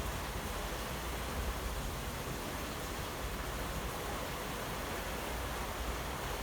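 Heavy rain falling in a steady downpour, an even hiss with a low rumble underneath.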